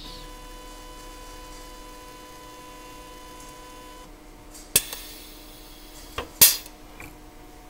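Automatic TIG welding on a welding lathe: a steady electrical buzz that cuts off about four seconds in, as the weld ends. A few sharp mechanical clicks follow, the loudest near the end.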